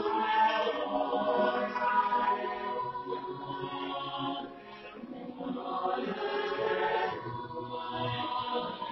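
High school choir singing, several voices together in harmony, dipping softer about halfway through.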